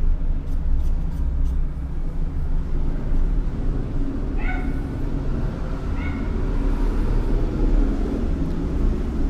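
Steady low background rumble, with two short high-pitched calls about a second and a half apart near the middle.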